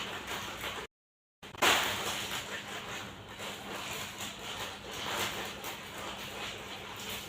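Irregular rustling handling noise with a faint steady hum, cut by a brief dead silence about a second in and resuming with a sudden louder rustle.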